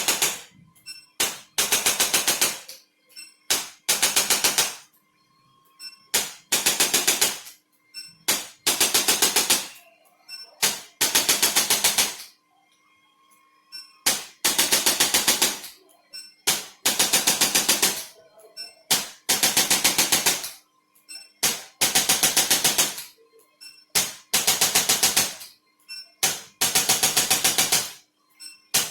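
Rapid mechanical tapping in bursts of about a second, about ten sharp strikes a second, repeating roughly every two and a half seconds, with a faint steady hum between bursts.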